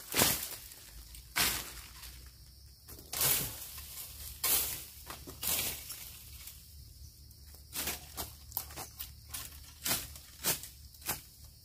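About ten irregular chopping strikes of a spade blade into the soil and the base of a wild bamboo shoot as it is cut out.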